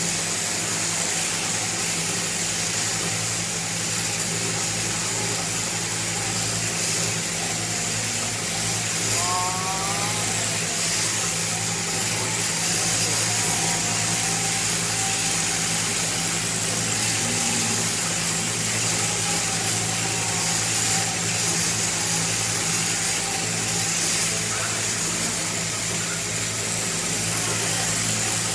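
Electric overhead-drive sheep-shearing machine running steadily, its motor humming and the handpiece cutter buzzing as it shears through the fleece.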